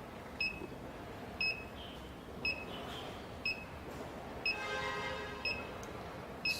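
OUSKI X10 alarm panel beeping after being armed: a short high beep about once a second, the steady countdown of an arming delay. A brief buzzy tone sounds about five seconds in.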